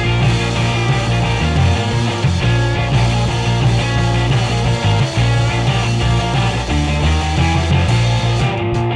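Background music: an upbeat rock track with guitar and a steady bass line.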